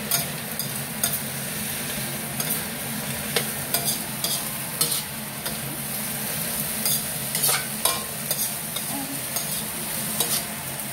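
A metal spatula scraping and clinking irregularly against a steel wok as string beans and squash are stir-fried, over a steady sizzle.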